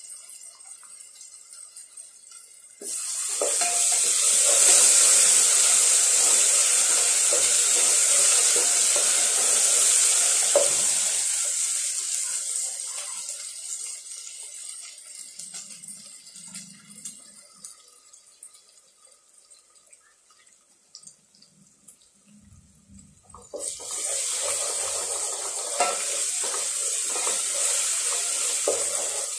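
Onions, tomatoes and green chillies frying in oil in a non-stick pot. The sizzling jumps up suddenly about three seconds in as ginger-garlic paste goes in, then fades almost away over the next fifteen seconds. It starts again suddenly a few seconds before the end while a wooden spatula stirs the mix.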